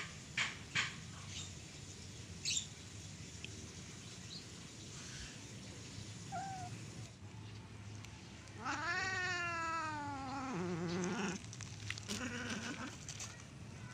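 Domestic cat giving a long, drawn-out meow of about two seconds, a little past halfway through. Its pitch rises, falls, then drops lower before it stops, after a few faint short calls earlier on.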